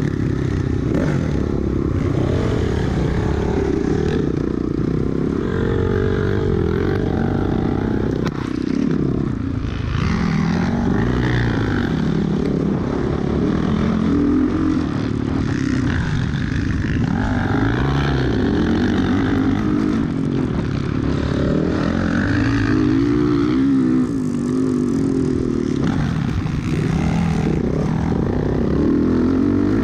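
Dirt bike engine heard from on board, revving up and down over and over as the throttle is opened and closed around a motocross track.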